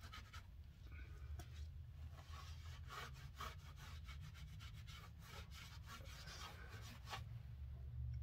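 Cloth rag wiping gear oil off the metal of an open truck rear differential housing: a run of irregular rubbing and scratching strokes, over a steady low hum.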